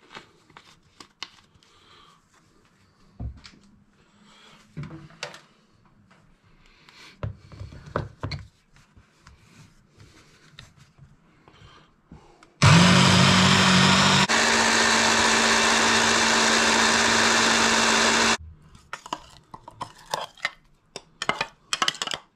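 ProMix electric hand blender with a mini chopper bowl running for about six seconds, blitzing shallots, ginger, garlic, chilli and spices into a marinade paste; its note changes about a second and a half after it starts. Light clicks and knocks come before it as the motor is fitted, and clinks and scraping after as the paste is spooned out.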